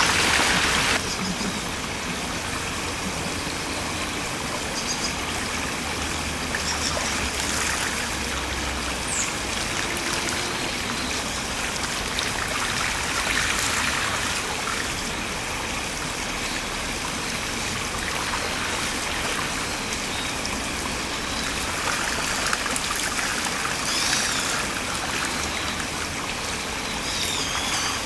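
Shallow stream running over a gravel bed, a steady rush of water. For about the first second, water spilling over a small weir is louder.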